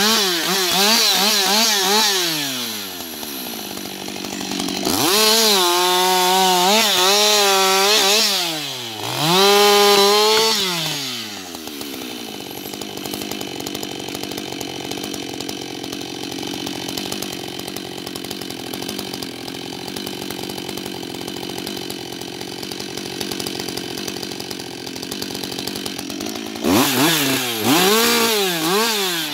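Husqvarna 560 XP two-stroke chainsaw cutting through logs at full throttle, its pitch wavering as the chain bites, in three cuts over the first eleven seconds. It then drops to a steady idle for about fifteen seconds and revs up into another cut near the end.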